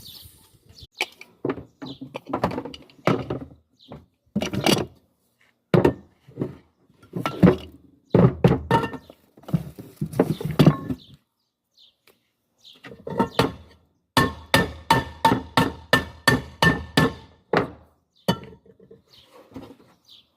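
Knocks and clanks on a pressure cooker being worked on by hand, then a steady run of about a dozen quick, ringing metal taps, about three a second, like light hammering.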